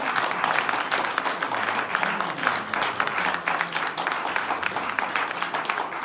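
Audience applauding, a dense, steady patter of clapping.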